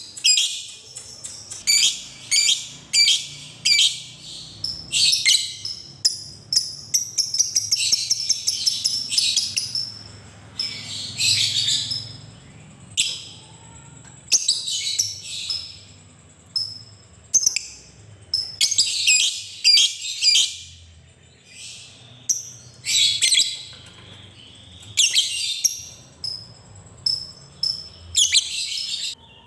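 A lovebird calling in shrill, rapid chattering bursts with short pauses between them. From about six to twelve seconds in, it runs into a longer unbroken chattering trill, the 'ngekek' that keepers prize.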